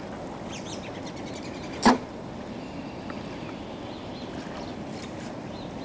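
Steady outdoor background noise, with one short, loud, sharp sound about two seconds in.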